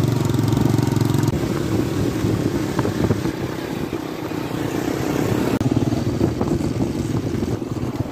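Small motorcycle engines running as the bikes ride along a dirt track, a steady engine drone. The sound jumps abruptly about a second in and twice more later.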